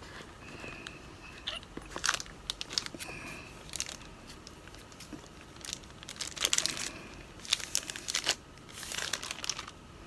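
Thin clear plastic wrapping crinkling as a new phone is pulled out of it and lifted from its box, in several irregular spells of crackling.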